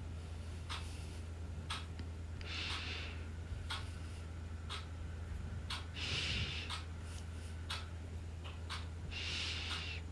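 Soft, hissy breaths about every three seconds over a steady low hum, with scattered faint clicks.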